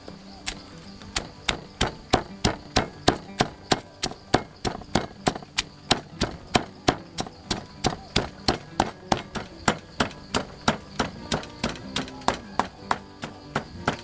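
Pestle pounding Thai chili paste in a mortar: a steady run of knocks, about three strikes a second.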